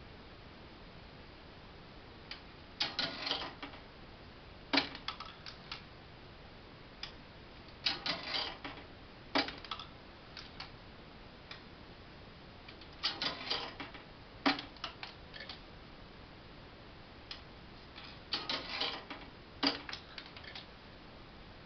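Mechanism of a prewar Forbes Forsastra coin-operated gambling machine clattering in four rounds about five seconds apart. Each round is a short rattling run of clicks, then a sharp click about a second and a half later and a few lighter ticks.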